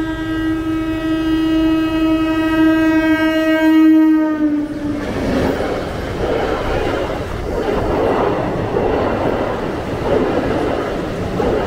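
MEMU electric multiple unit train sounding one long horn as it approaches at speed, the pitch dipping as it reaches the crossing, then the rumble and clatter of its coaches rushing past.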